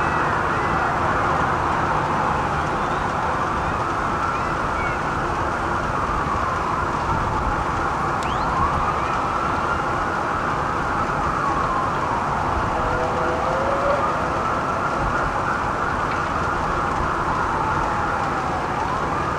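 Several emergency-vehicle sirens in a slow wail, each rising and falling over a few seconds and overlapping one another, over steady street and traffic noise.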